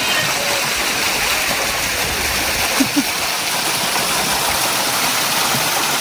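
A small waterfall pouring into a pool, a steady rush of falling water. Two brief short blips sound over it about three seconds in.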